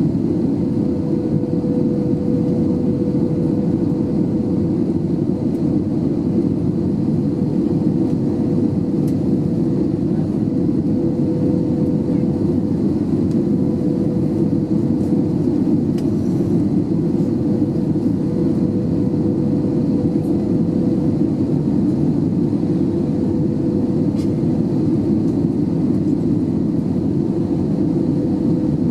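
Airbus A320 cabin noise in flight: a low, even rush of airflow and engine noise with a steady hum on top.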